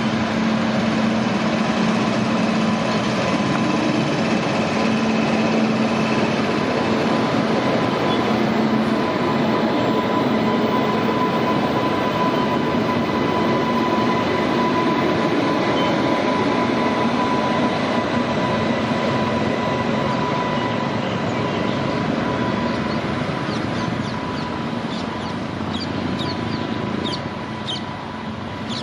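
Twin WAG-9HC electric locomotives passing close by: a loud, steady rumble of wheels and running gear with a constant whine through it. The sound fades in the last few seconds as they draw away, with a few short high squeaks near the end.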